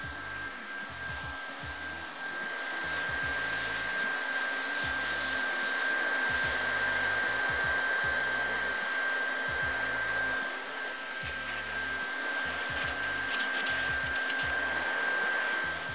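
Handheld heat gun blowing steadily, a constant high whine over its fan and air noise, getting a bit louder about two seconds in. It is warming freshly brushed epoxy on a wooden surfboard rail so the resin thins and soaks into the grain.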